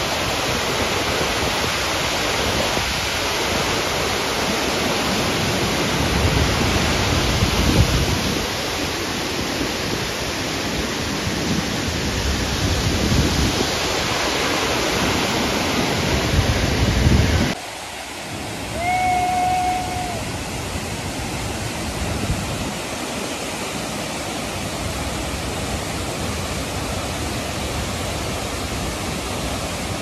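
Steady rush of a mountain stream tumbling over boulders in rapids. About two-thirds of the way through it switches abruptly to a slightly quieter, more even hiss of a waterfall heard from farther off, with a short whistled note soon after.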